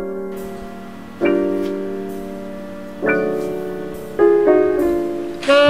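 Background music: slow piano chords, each struck and left to fade, roughly every two seconds. Near the end a sustained bowed string note comes in.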